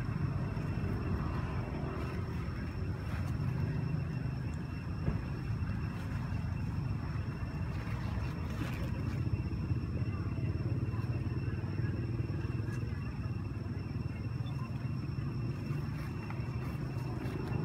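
Steady low engine-like rumble with a faint, steady high whine over it.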